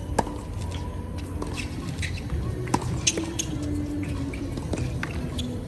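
Tennis rally on a hard court: sharp pops of racket strings striking the ball, about three of them, with short sneaker squeaks on the court surface between the shots.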